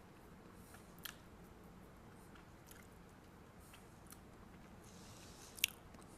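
Faint mouth sounds of someone tasting ground pink Himalayan salt: soft lip and tongue smacks, with a small click about a second in and a sharper one near the end.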